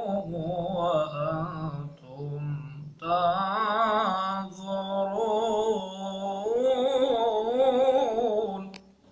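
A man reciting the Quran in melodic tajweed style, singing long drawn-out phrases whose pitch wavers and turns in ornaments. There is a brief pause about two seconds in, then one long held phrase that stops shortly before the end.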